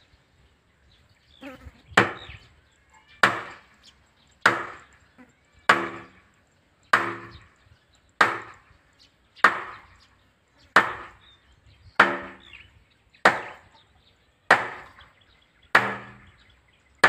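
A sledgehammer striking a wooden block set on top of a PVC well pipe to drive the pipe into the ground during manual well drilling. There are about twelve evenly spaced heavy blows, roughly one every 1.25 seconds, and most of them leave a brief low ring.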